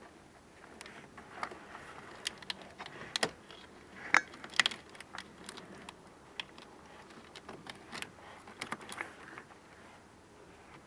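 A bungee cord's metal hooks and the plastic wiring loom clicking, clinking and rustling as the cord is hooked around an engine-bay wiring harness. The sharp clicks are scattered irregularly and are loudest about four to five seconds in.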